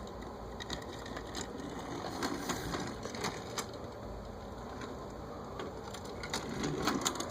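Faint scattered clicks and light rattling of diecast toy cars being handled.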